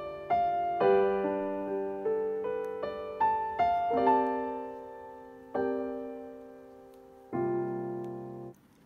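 Background piano music: a slow melody of single struck notes, each left to ring and fade, stopping shortly before the end.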